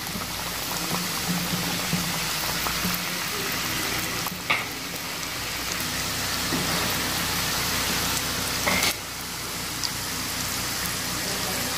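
Somas pastries deep-frying in hot oil over a low flame: a steady sizzle, briefly louder twice, about four and a half and nine seconds in.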